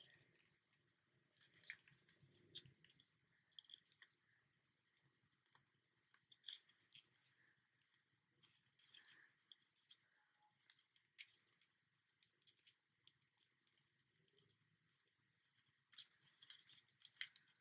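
Faint crinkling and crackling of white origami paper being creased and folded by fingers, in short scattered crackles with quiet between and a small flurry near the end.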